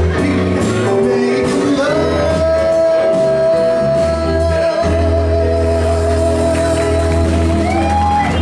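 A man sings over a live band of keyboard, electric bass and drums, holding one long note for about six seconds that lifts briefly in pitch near the end.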